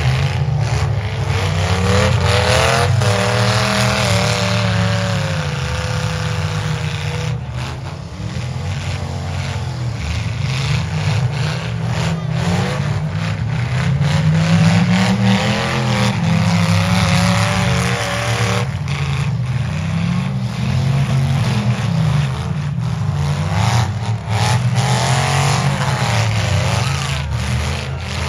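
Several demolition derby cars' engines running hard at once, revving up and down as the cars accelerate and reverse on the dirt, with a few sudden knocks.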